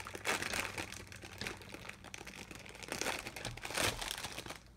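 Plastic and cardboard speedcube packaging crinkling and rustling as it is handled and opened, in quick irregular strokes that die down near the end.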